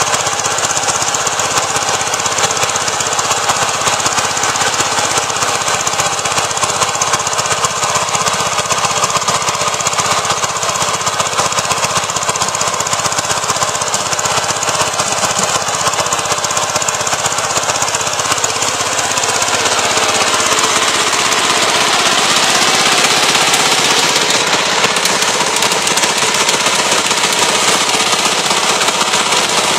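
VST Shakti 130 DI power tiller's single-cylinder diesel engine running hard under load while tilling the soil, a steady fast knocking clatter. It grows louder about two-thirds of the way through as the machine draws close.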